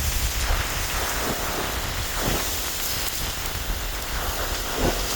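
Steady rushing noise of blizzard wind, with a low rumble of wind buffeting the microphone.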